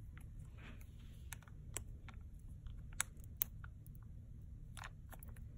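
Small clear plastic slime cup and its lid handled with the fingers as it is prised open: scattered light plastic clicks at irregular intervals.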